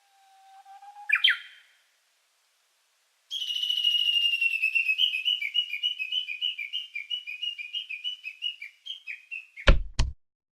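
A bird's short rising call, then after a pause a long whistled bird call: a steady high whistle that breaks into a wavering trill, sinking slightly as it goes. Near the end come two sharp clicks of a button press.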